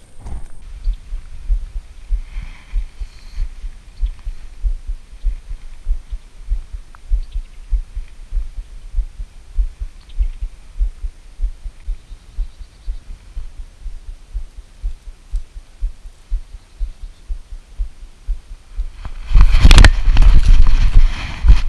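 Footfalls of a person running through dry grass and brush with the camera, jolting it in low thumps about two to three a second. Near the end a loud burst of rustling and camera-handling noise lasts a couple of seconds.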